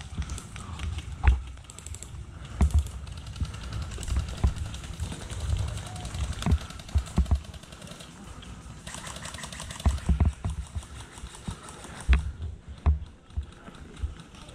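Irregular knocks and clicks with low thumps, some coming in short clusters.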